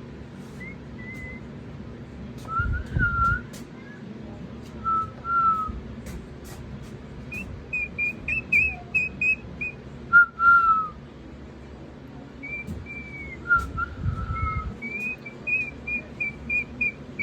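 Sulphur-crested cockatoo whistling: short sliding whistled notes alternating with quick runs of repeated high notes.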